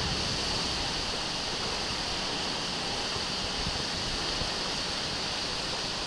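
Heavy rain driven by high wind in a thunderstorm: a steady rushing hiss with an uneven low rumble underneath.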